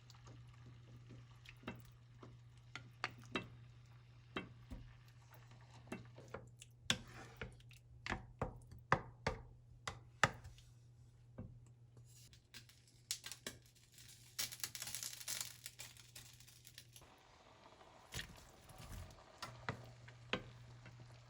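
Irregular sharp clicks and knocks of kitchen utensils, coming thickest about seven to ten seconds in, over a low steady hum that drops out for a couple of seconds near the end.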